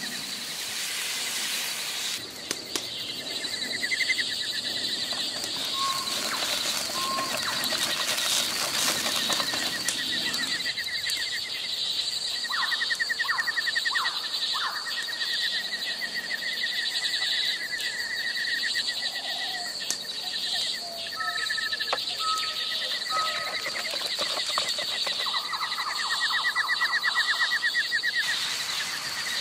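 Forest birds singing, with trills and short whistled notes, over a wood fire crackling and a frying pan of chicken and vegetables sizzling.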